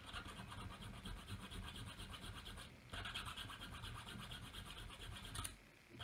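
Small needle file rasping across the side of a tiny metal doll buckle held in pliers, in rapid back-and-forth strokes that thin it down. The filing pauses briefly about three seconds in and again near the end.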